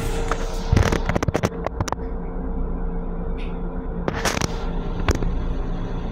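Steady low hum and a faint steady tone inside the restroom of an M7 electric railcar. A quick run of sharp clicks and rattles comes about a second in, then a short noisy burst and a single knock later on.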